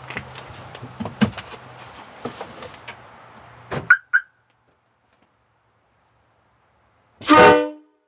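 Shuffling and knocking over a low steady hum, then two sharp clicks about four seconds in. Near the end, a Nathan Airchime K5LA five-chime train horn gives one short, loud blast of about half a second, a chord of several steady tones.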